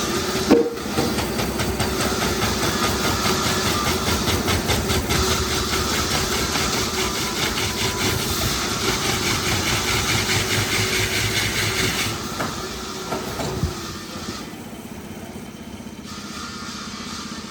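Hydraulic log debarking machine running: a steady motor hum under dense, fast rattling and hissing, with a sharp knock about half a second in. The rattling eases off about twelve seconds in, and it is quieter still near the end.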